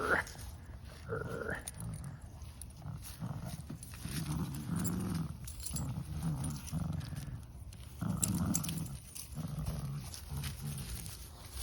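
Cavalier King Charles spaniels play-growling as they tussle over a toy, a run of low, pulsing growls from about four seconds in.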